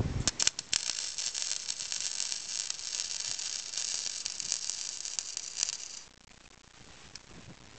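Wire-feed welder arc crackling as it lays a weld over a crack in a steel mini bike frame tube, stopping about six seconds in.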